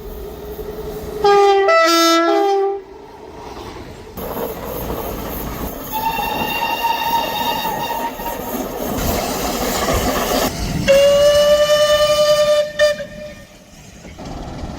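Train horns: a short blast alternating between two notes about a second in. Then a passing train's wheel and rail noise, with a long steady horn note over it. A second loud, steady horn note follows and stops shortly before the end.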